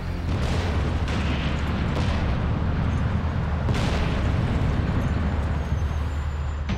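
Rock blasting with explosive charges: a deep, continuous rumble of detonations and falling rock, with sharp cracks near the start and again partway through.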